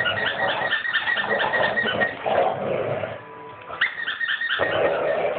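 Two dogs growling as they play tug-of-war over a toy. The growls swell and fade, stop briefly about three seconds in, and then start again.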